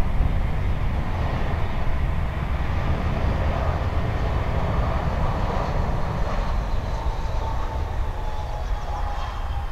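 Airbus A319 jet engines running, a whine that slowly falls in pitch over a steady low rumble.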